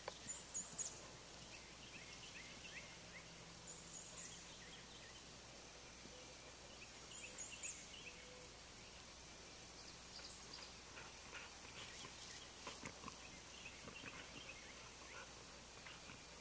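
Faint outdoor ambience with songbirds singing in the background: short, high chirping phrases repeated every few seconds, with a few soft taps near the end.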